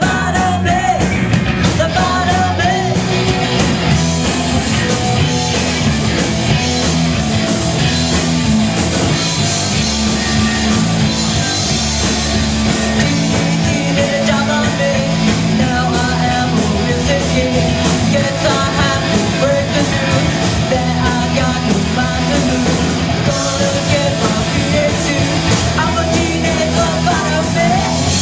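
Live rock band playing loud: electric guitars through Marshall amplifiers and a drum kit, with a singer's voice over the band.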